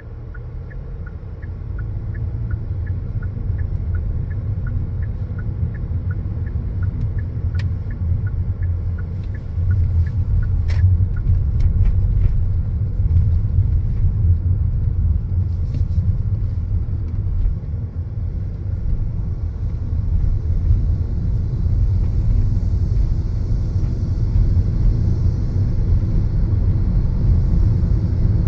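Car driving, heard from inside the cabin: a steady low rumble of tyres and engine that grows louder over the first ten seconds or so as the car picks up speed. A faint regular ticking, about two a second, runs through the first several seconds.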